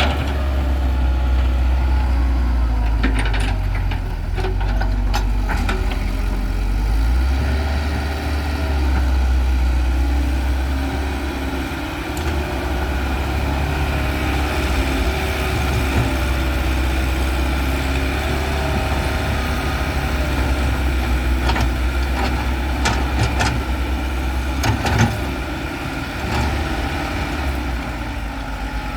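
Heavy diesel engines of an excavator and tractor running steadily with a deep rumble. The engine note shifts up and down, with a few short knocks and clanks.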